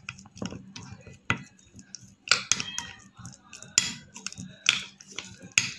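A metal spoon stirring a thick spice paste in a glass bowl, scraping and clinking irregularly against the glass, with a few louder knocks spread through.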